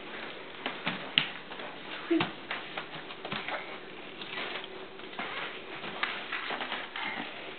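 Irregular light clicks and taps of footsteps on a hardwood floor, with a few sharper knocks.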